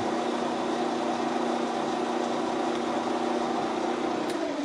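KING benchtop metal lathe running steadily with its chuck spinning, a steady motor and spindle hum, while the chuck's balance is checked after weight was drilled out of it. Near the end it is switched off and starts to spin down.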